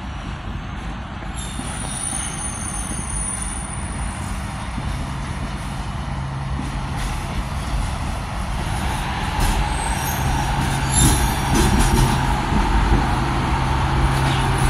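Redhen diesel railcar pulling slowly into a station, its engine running with a steady low tone that grows louder as it draws close. A few sharp knocks from the wheels or couplings sound about ten seconds in.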